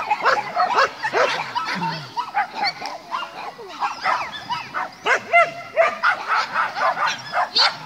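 Dogs barking over and over, short sharp barks following each other closely throughout.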